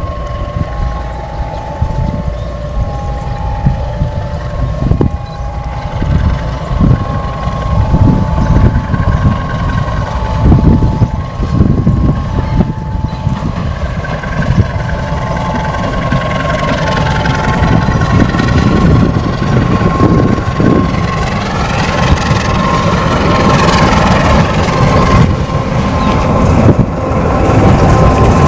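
Babaranjang coal train passing close by: a heavy low rumble of locomotive and wagons that grows louder, with scattered thumps. Over the first half a two-note beeping alternates in short tones, and from about halfway a steady high tone rings over the rumble.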